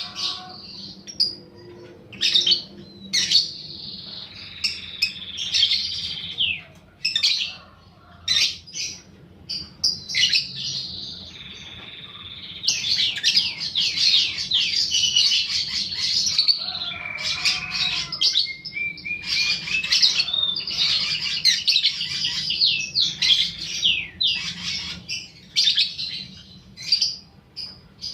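Lovebird chattering in fast, high-pitched trills: short bursts at first, then long unbroken runs of several seconds each, with a rising whistle about two-thirds of the way in. This is the long chatter ('ngekek') that keepers play back to set other lovebirds calling.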